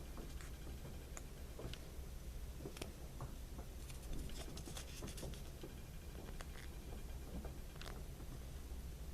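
Light, irregular clicks and taps of small plastic Kinder Surprise toy parts being handled, over a low steady background hum.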